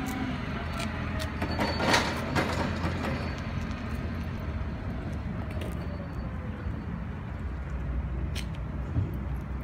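Deutz diesel engine of an Atlas Copco XAS 375 mobile air compressor running steadily, with a few sharp knocks, the loudest about two seconds in.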